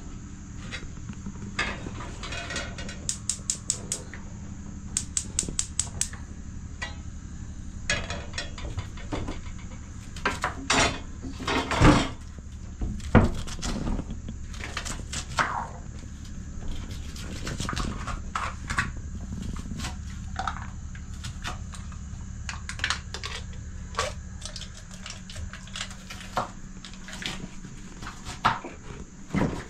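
Kitchen knife chopping red onion on a wooden cutting board: runs of quick taps, about eight a second, mixed with scattered knocks and clatter, the loudest two near the middle.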